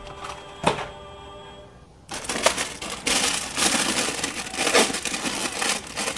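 Plastic packaging of an action figure's accessories being opened and handled, crinkling and cracking with sharp clicks, starting about two seconds in. Before that, faint music with sustained notes cuts off suddenly.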